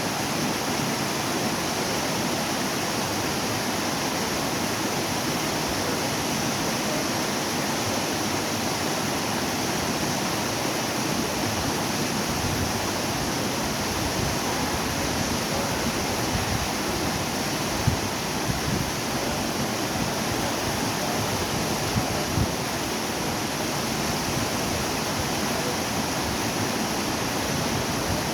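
Waterfall, water falling and splashing in a steady unbroken rush, with a few brief low bumps about two-thirds of the way through.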